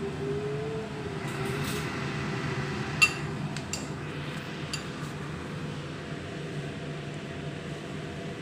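Steady hum of a kitchen range hood fan, with a few sharp clinks of metal utensils against dishes, the loudest about three seconds in.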